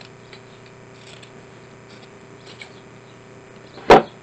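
Scissors snipping through a strip of velvet fabric, a few faint small clicks and rustles. A single sharp knock about four seconds in is the loudest sound.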